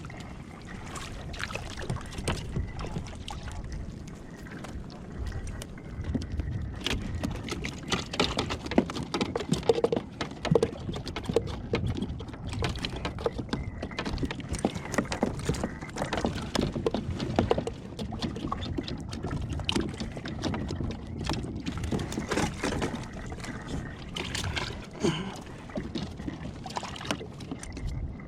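Water lapping and sloshing against a plastic fishing kayak's hull, with scattered knocks and clicks of gear being handled on board.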